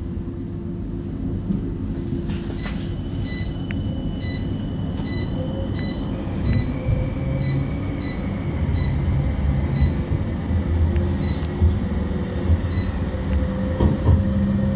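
Inside a CAF Urbos 3 tram pulling away from a stop: a steady low running rumble, with a faint electrical whine that changes pitch about six seconds in. From about two seconds in, a series of short electronic beeps sounds roughly twice a second for about ten seconds.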